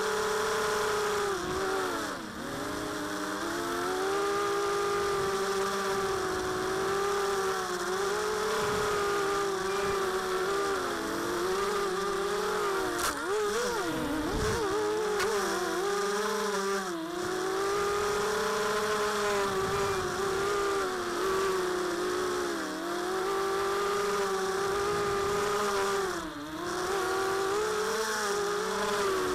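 Four Tiger Motors MT1306-10 brushless motors spinning 5x3 two-blade props on a mini quadcopter, heard from on board. It is a steady whine whose pitch dips and climbs again with each throttle change, with a large wobble about halfway through. The owner says the motor bearings are getting really bad.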